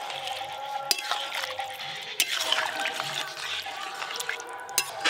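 A ladle stirring a thin curry in an aluminium pan, sloshing the liquid, with a few sharp clinks of the ladle against the pan. The curry has just had water added, which is being mixed in.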